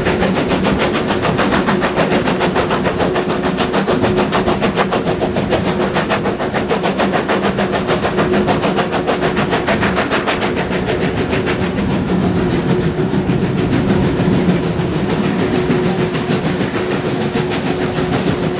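Steam locomotive working hard at speed, heard from an open carriage window in a tunnel: rapid, steady exhaust beats over the clatter of wheels on rail, echoing off the tunnel walls.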